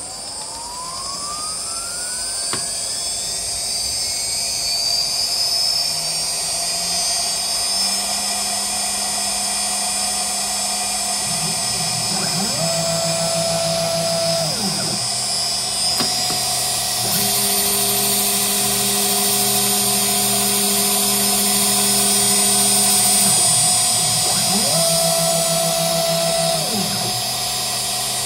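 CNC router spindle spinning up with a rising whine, then running at a steady high whine while its stepper motors hum in changing tones as the machine cuts a PCB with a V-bit. Twice, about halfway through and again near the end, the motor tones swoop up and back down as an axis speeds up and slows.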